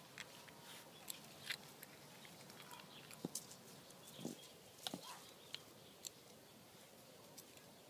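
Faint, scattered scuffs and rustles of two puppies moving about and pawing in dry soil and ivy: a handful of short ticks spread through, thinning out near the end.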